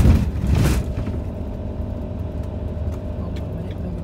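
Campervan driving along a narrow country lane, heard from inside the cab: steady engine and road rumble, with a brief loud rush of noise in the first second. Faint regular ticking, about three a second, starts near the end.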